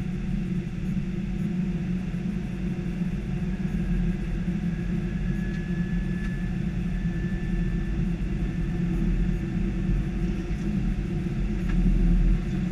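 Steady flight-deck noise of an Airbus A319 on approach: airflow and engine rumble. A faint, high, steady tone runs through the middle, and the noise swells briefly near the end.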